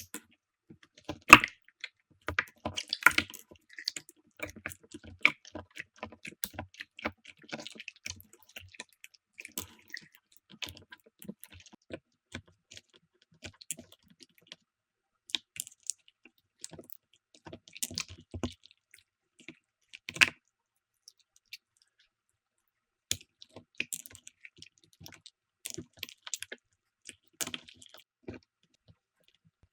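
Hands squeezing and poking slime, making irregular sticky clicks and small pops, with a brief pause of a couple of seconds about two-thirds of the way through.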